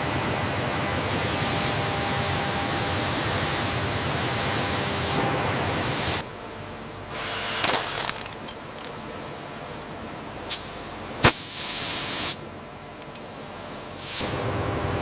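A steady hiss, like a spray or air jet, for about six seconds. It gives way to a quieter hum, broken by a few sharp clicks and a loud snap followed by a short burst of hiss about eleven seconds in.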